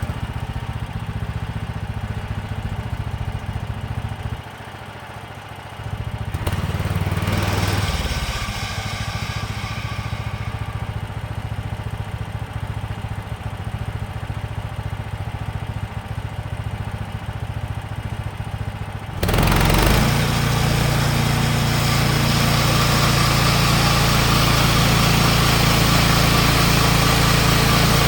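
Small gasoline engine of a portable band sawmill running at a low, steady speed, rising briefly about seven seconds in, then stepping up sharply in level about two-thirds of the way through and running louder and steady.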